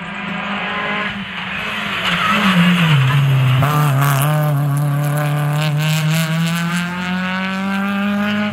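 Rally car engine under hard throttle, growing louder. Its pitch drops about three seconds in, then climbs steadily as the car accelerates through the gear.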